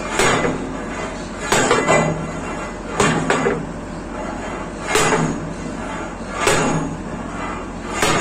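About eight hammer blows on metal, some in quick pairs, falling roughly every second and a half, working loose a badly seized part that starts to give.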